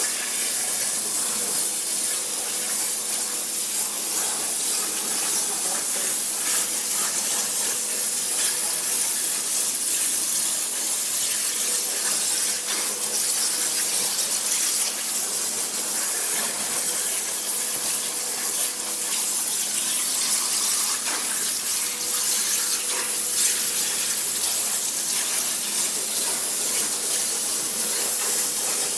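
Water jet cutter's high-pressure jet cutting through a metal plate: a steady, high-pitched hiss, with a faint steady hum underneath.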